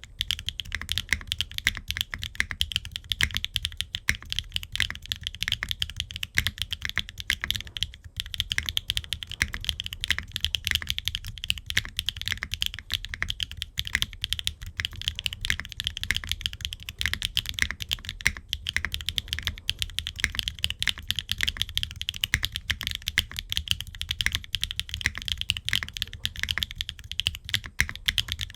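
Fast, continuous typing on a gasket-mounted Qwertykeys Neo65 Core Plus mechanical keyboard with an aluminium case and plate and no foam, fitted with HMX Aster linear switches and Cherry-profile ABS double-shot keycaps. Keystrokes follow one another densely without a real pause.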